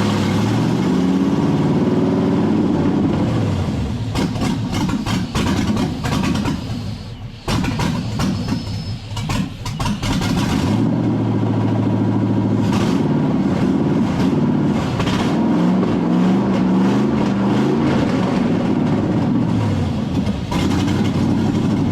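5.3-litre LS V8 running unevenly, revving up and down, then falling away to a stumble for a couple of seconds in the middle before picking back up. A thin whistle can be heard briefly, which the owner wonders is from the air cleaner.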